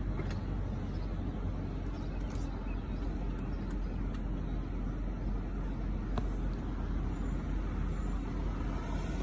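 2008 Audi Q7 idling with the selector in neutral, a steady low hum. Neutral is the one position where the noise from its transmission, which the owner believes is not engaging, dies down. A light click about six seconds in.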